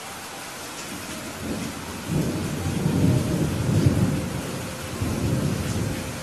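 Thunder rumbling over steady rain. The rumble builds from about a second and a half in, is loudest around the middle, swells once more, then dies away near the end, leaving the rain hiss.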